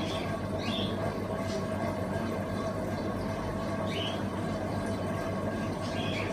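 Steady mechanical hum holding a few fixed tones, with a few short high chirps scattered through it.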